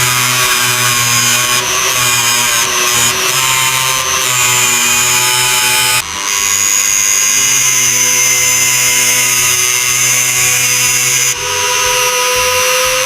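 A small electric power tool, drill-like, running steadily at speed with a constant motor whine, changing abruptly about six seconds in and again near the end.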